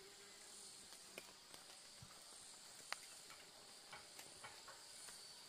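Near silence with a faint, steady high-pitched insect chirring, and a few soft scattered clicks.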